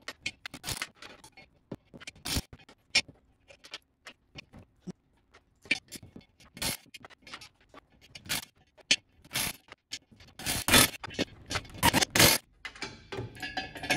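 Metal clicks and scrapes of lug nuts being threaded by hand onto steel wheel studs in a military split-rim wheel, irregular and scattered. Near the end come a few louder short bursts from a cordless wrench running a nut down to pull a stud into the wheel.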